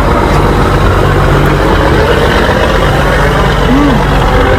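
Steady low mechanical hum, like an engine running at idle, with a dense rumbling noise over it.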